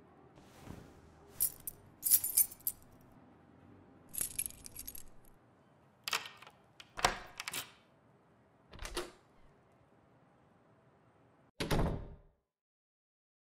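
A series of short handling noises: clicks, knocks and rattles, with a jingling metallic rattle about four seconds in and a heavier knock near the end that cuts off sharply.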